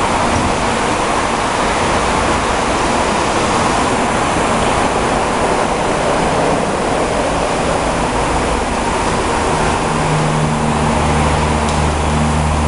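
Zayer KF3000 CNC bed mill running: a steady loud rushing noise, with a low motor hum coming in about three quarters of the way through.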